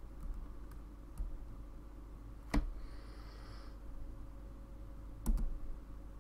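Two sharp computer-keyboard keystrokes about two and a half seconds apart, with a few fainter key ticks, over a low steady hum. A short soft hiss comes between the two keystrokes.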